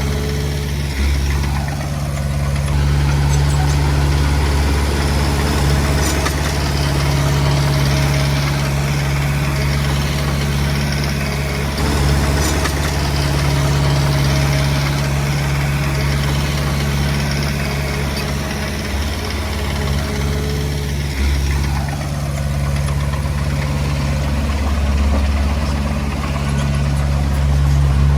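Komatsu D20P bulldozer's diesel engine running continuously under work, its low drone swelling and easing every several seconds as the load changes.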